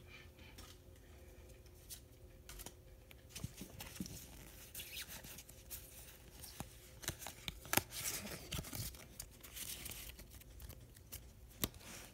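Faint rustling and light, scattered clicks of a Pokémon trading-card booster pack being opened and its cards shuffled and sorted in the hands.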